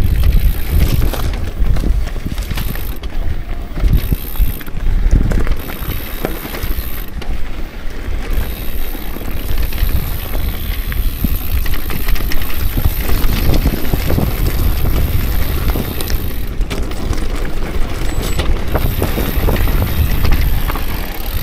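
Orbea Rise electric mountain bike riding down loose, rocky singletrack: the tyres crunch over gravel and stones, and the bike rattles with many small knocks over the rough ground.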